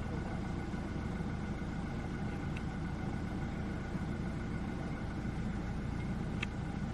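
Vehicle engine idling steadily with a low rumble, with two brief faint high ticks, one about two and a half seconds in and one near the end.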